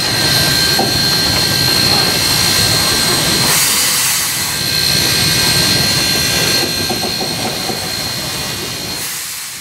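Inside the cab of New Haven Mikado steam locomotive No. 3025 rolling slowly: a steady hiss of steam with a thin, steady high tone over the rumble of the wheels on the track, the hiss swelling briefly about three and a half seconds in and again near the end.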